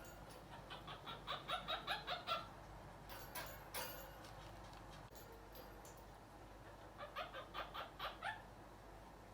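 Quaker parrot giving two runs of quick, short repeated chirps, about five a second, with a few sharp clicks between them.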